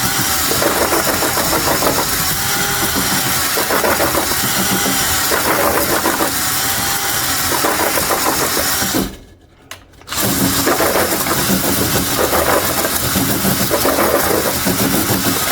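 Power drill spinning an oiled flex hone (ball hone) inside an air-cooled VW cylinder, with a steady grinding whir. It stops about nine seconds in and starts again about a second later.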